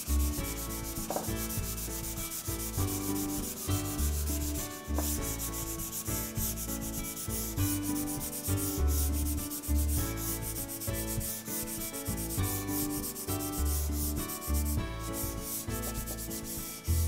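Hand-sanding a shina (linden) plywood panel with 320-grit sandpaper, rubbing back and forth along the grain in a continuous scratchy hiss. The paper is smoothing down a dried first coat of sanding sealer before the next coat of urethane finish.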